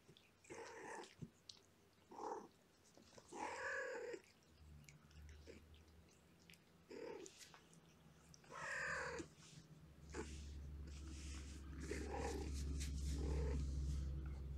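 Cats meowing several times in short calls, with a steady low purr setting in and growing louder near the end as a cat purrs close to the microphone.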